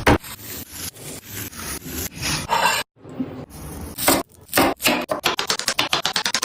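Knife strokes on a wooden chopping board: uneven chopping strokes, a brief break about three seconds in, then quicker, regular strokes near the end.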